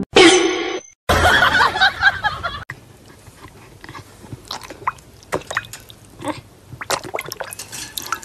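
A dog lapping water from a plastic bowl: an irregular run of wet slurping clicks from about three seconds in. Before it, in the first two and a half seconds, a short loud cry and then a louder noisy stretch.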